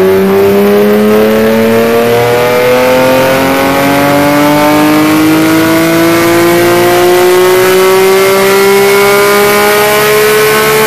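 Porsche 991 GT3 flat-six breathing through Evolution MotorSports aftermarket headers and exhaust, pulling under load on a chassis dynamometer. The revs climb slowly and steadily in one long pull.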